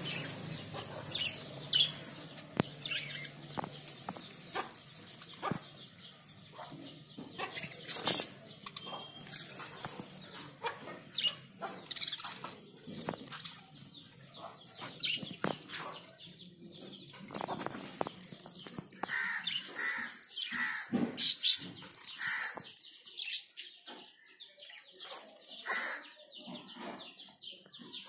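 Caged zebra finches giving short, scattered chirps, mixed with brief wing flutters and clicks as they hop and flap about the cage.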